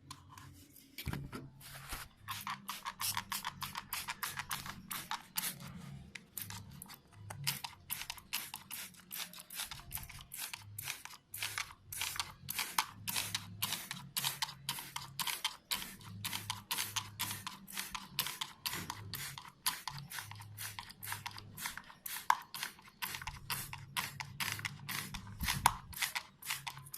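Hand trigger spray bottle squirting cleaning solution onto an air conditioner's evaporator coil, pumped over and over at about two to three squirts a second.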